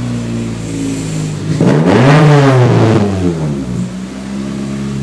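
1999 Acura Integra GSR's four-cylinder engine, heard from inside the cabin, idling and then revved once about one and a half seconds in: the pitch climbs and falls back to idle over about a second and a half.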